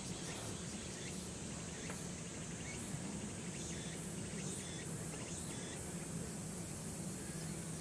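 Insects calling in rapid high-pitched pulses that stop about six seconds in, over a steady low hum.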